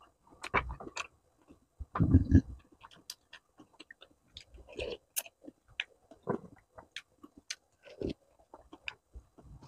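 Close-miked eating of bakso (Indonesian meatball soup): chewing and slurping noodles and broth off a spoon, with many small wet mouth clicks and a few louder slurps, the loudest about two seconds in.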